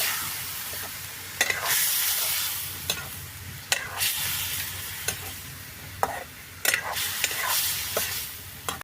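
Ant eggs frying and sizzling in a kadhai, stirred with a spatula that scrapes and clicks against the pan many times.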